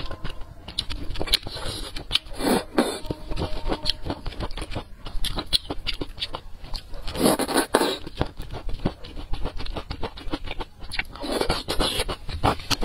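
Close-miked eating of thick noodles in sauce: chewing with a constant patter of wet mouth clicks and smacks, broken by three longer, louder slurps a few seconds apart.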